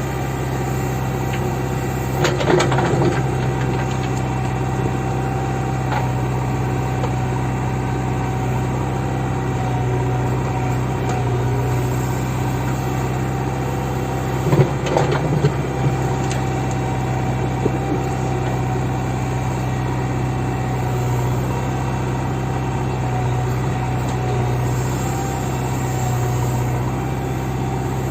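JCB backhoe loader's diesel engine running steadily at work, with brief metallic clatter about two seconds in and again about halfway through.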